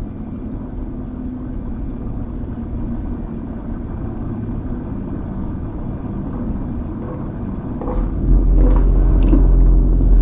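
A low rumbling drone that slowly grows louder, then swells much deeper and heavier about eight seconds in, with a few faint clicks.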